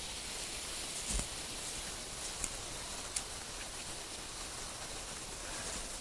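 A small kindling fire of birch bark and dry twigs, just lit with a match, catching over a steady hiss, with a few faint crackles and a soft thump about a second in.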